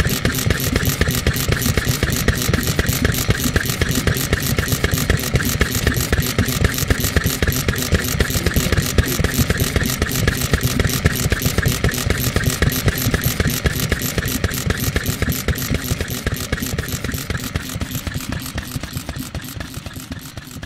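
1949 Daikin Type 2KH 2 hp hopper-cooled kerosene engine with spark ignition, running steadily with a rapid, even mechanical clatter. The sound fades out near the end.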